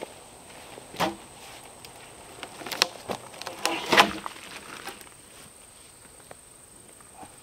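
A long-handled chopping tool striking a log: several sharp chopping blows in the first four seconds, the loudest about four seconds in, then only faint taps.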